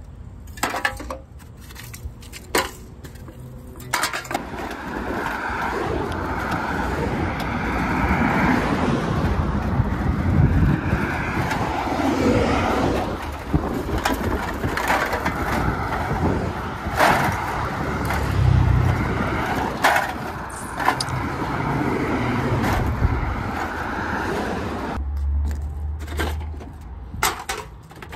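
Aluminum cans clinking as they are handled, then a bicycle ride: steady wind and road noise with cans rattling in a plastic milk crate on the handlebars. Near the end the riding noise stops and cans clink again.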